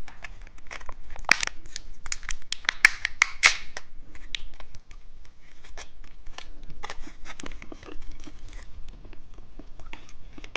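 Plastic candy wrapper crinkling and tearing as a pack of turtle-shaped gummy candies is opened, an irregular run of sharp crackles and rustles.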